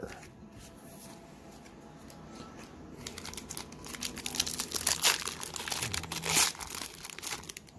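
Foil wrapper of a hockey-card pack crinkling and tearing as it is ripped open by hand. It starts about three seconds in as a dense run of crackles.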